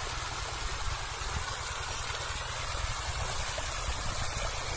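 Water gushing steadily from the outlet of a long plastic irrigation pipe fed by a pump set, over a steady low rumble.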